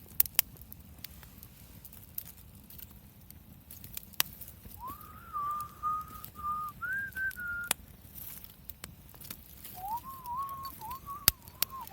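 Campfire crackling with sharp snaps, while a high, wavering tone comes and goes twice, about three seconds each time.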